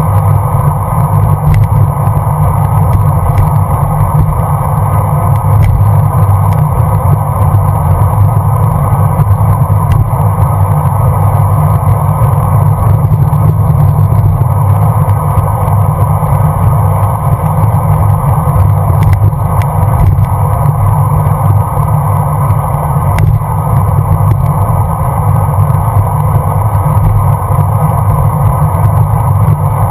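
Steady, loud wind rumble on a bicycle-mounted GoPro's microphone together with road noise from the moving bike, with a few light clicks.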